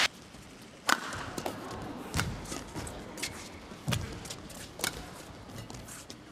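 Badminton rally: racket strings striking the shuttlecock in sharp cracks, about four of them, each a second or more apart, with fainter taps from footwork on the court in between.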